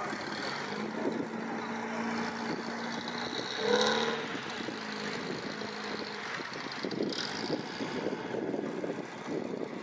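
The 847 cc overhead-cam four-cylinder engine of an MG M-type Midget running at low speed as the car pulls away across grass. A brief, louder pitched sound comes about four seconds in.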